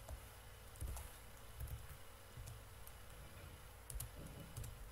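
Computer keyboard being typed on: a handful of faint, irregularly spaced keystrokes.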